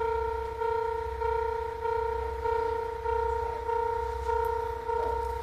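Electronic railway level-crossing bell ringing, a two-tone clang repeated evenly about once every 0.6 seconds, the warning that a train is approaching.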